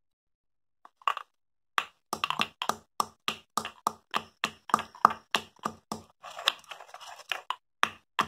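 Stone pestle pounding black peppercorns in a small stone mortar, crushing them coarsely. Quick, sharp knocks come about four a second, starting about a second in.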